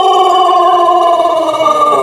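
Pelung rooster's long crow, one drawn-out note held for seconds that slowly sinks in pitch and turns wavery near the end.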